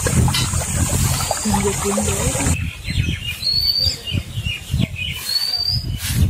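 Stream water rushing and splashing over rocks, cut off sharply about two and a half seconds in, after which birds call with short rising chirps, twice, over a low, uneven rumble.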